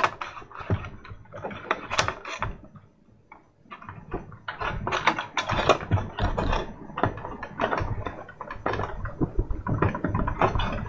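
Irregular clicks, scrapes and rustling of hands handling wire and parts inside the open case of a CD player, with a short lull about three seconds in.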